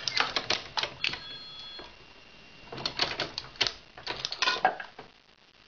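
Hornady 366 Auto progressive shotshell reloading press being cycled: two runs of quick metallic clicks and clacks as the handle is worked and the shell plate indexes, with a short metallic ring between them.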